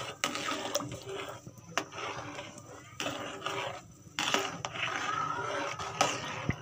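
A metal ladle stirring milky rice payasam in a pot: liquid swishing with the ladle scraping and knocking on the pot, in repeated strokes a second or so long.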